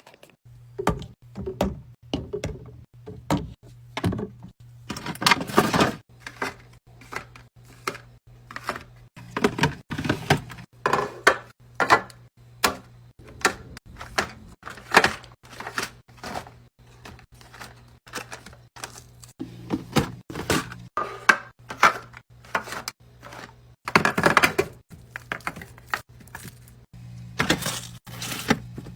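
Items being set into and shuffled around a mini fridge while it is restocked: a continual run of knocks, taps and clatters, with a few louder bursts of handling, over a steady low hum.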